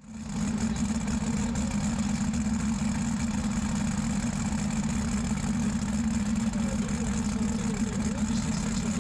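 Twin methanol-fuelled engines of a light modified pulling tractor idling steadily.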